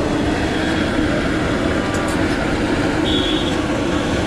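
Steady roar of a gas stove burner under a large aluminium pot of chai.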